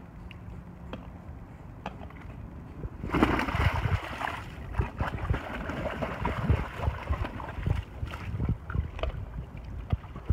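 A dog drops from an inflatable boat into a swimming pool with a loud splash about three seconds in, then splashes on and off as it paddles through the water.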